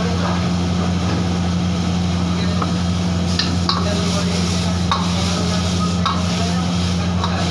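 A steel ladle stirring and scraping in a wok of sizzling chilli chicken sauce, with several sharp knocks of the ladle against the wok. Under it runs the steady low roar of a high-flame wok burner.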